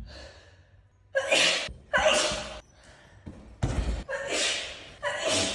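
A woman's sneezing fit: four loud sneezes in quick succession, roughly a second apart, after a short breath in near the start.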